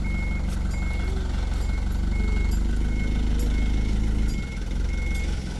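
Sand-laden dump truck reversing: its engine runs at low speed while its reversing alarm beeps steadily, about once every three-quarters of a second. The engine swells for a couple of seconds, then eases off near the end.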